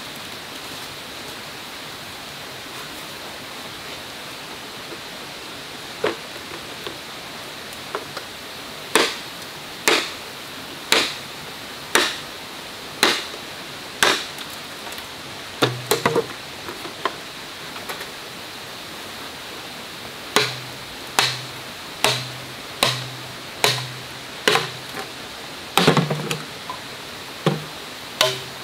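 Machete chopping a green bamboo pole: sharp strikes that start about six seconds in and mostly come about once a second, in runs with short pauses, over a steady background hiss.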